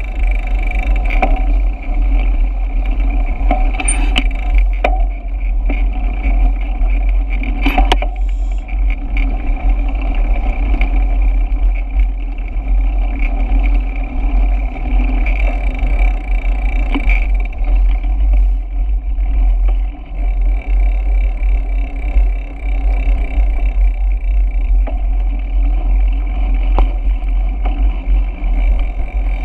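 Wind buffeting the microphone and tyre noise of a bicycle being ridden, a steady rumble with a few sharp clicks.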